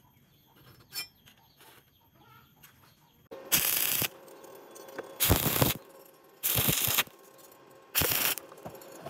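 Stick-welding arc struck four times for short tack welds, each a loud hiss lasting about half a second, the first coming after about three and a half quiet seconds.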